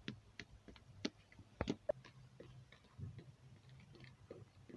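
Irregular light clicks and taps of a plastic toy horse's hooves knocking on mossy stone paving as it is moved along by hand, with a few sharper knocks.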